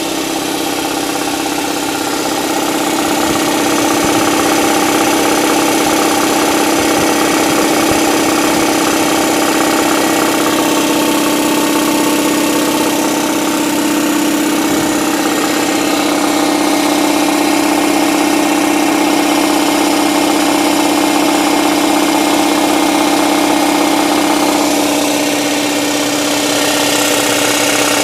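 Husky 60-gallon air compressor running steadily on 220 V single-phase power, its electric motor and piston pump making a constant machine drone.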